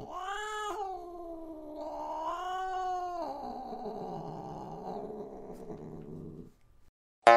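A domestic cat yowling: one long drawn-out wail lasting about three seconds that dips and then rises again, trailing into a rougher, lower rasp for about three more seconds before it stops.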